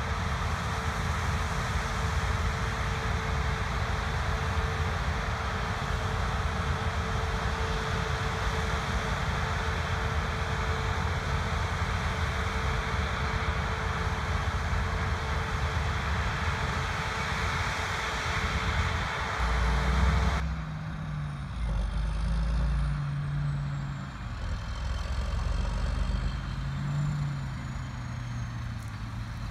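Heavy harvest machinery running: a dense, steady machine noise with a constant whine, which changes abruptly about two-thirds of the way through to a lower engine note that rises and falls in pitch.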